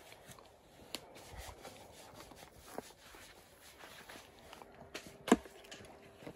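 Footsteps on soil and a few scattered knocks over a quiet background, the loudest knock about five seconds in.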